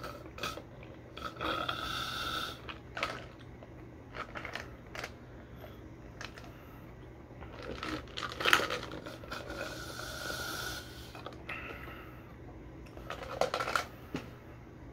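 Close-up drinking sounds from a clear plastic cup: sips and swallows, with scattered clicks and light handling of the plastic. Two longer, steadier stretches come about two seconds and ten seconds in, and a louder cluster of noises near the end.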